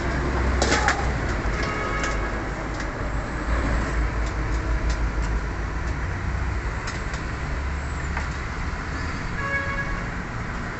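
Steady low rumble of background noise, with a few light clicks and clinks, a sharper one about a second in.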